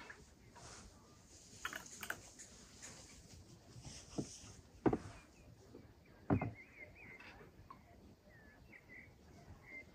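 Birds chirping faintly with short twittering calls, and a few sharp knocks around the middle, the loudest about five seconds in.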